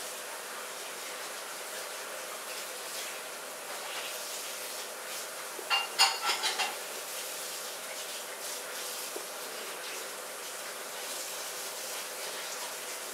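A short sneeze about six seconds in, a sharp burst with a few quick trailing bits, over a steady background hiss.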